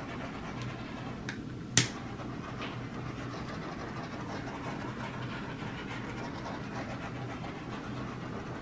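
Handheld torch flame hissing steadily as it is passed over wet acrylic pour paint. One sharp click a little under two seconds in.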